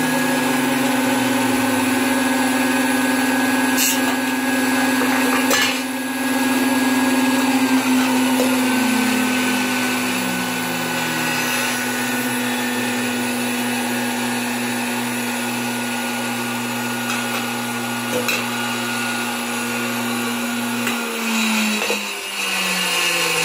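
Vintage Hamilton Beach three-spindle milkshake mixer running, its motors giving a steady hum and whine, with a few sharp clicks. Near the end part of the hum drops out and the pitch slides down.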